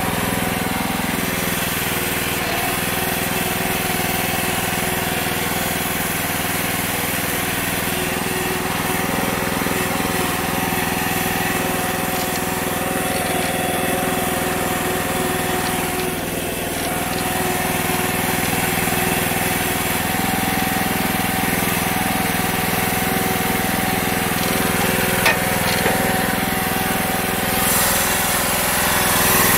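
Small single-cylinder replacement engine on a repowered Case 444 garden tractor, running steadily under load as the tractor is driven along.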